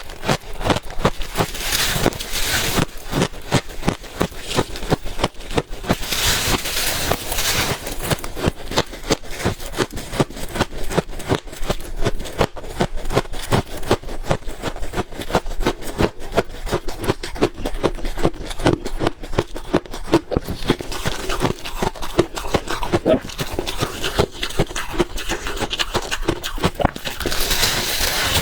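A person biting and chewing freezer ice: a dense run of crisp crunches and cracks, several a second. Louder, hissier crunches come about two seconds in, again around six seconds, and near the end.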